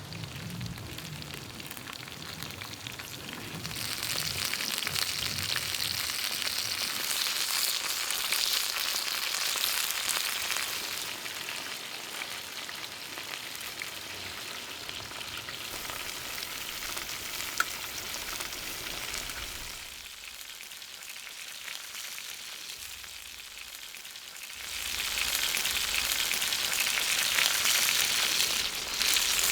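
Sausages frying in a wok, a steady sizzle that grows louder about four seconds in, eases off for a few seconds past the middle, then comes back louder near the end. There is one sharp click partway through.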